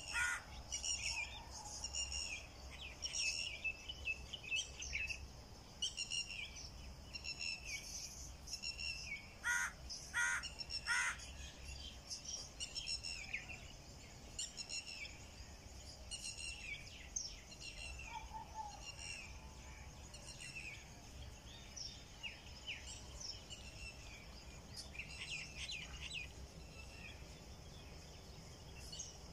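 Small birds chirping over and over, with a few louder calls near the start and about ten seconds in, over a low steady rumble.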